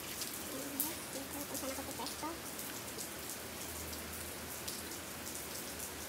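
Steady patter of rain, with scattered sharp ticks of drops; a few faint short calls come in the first two seconds.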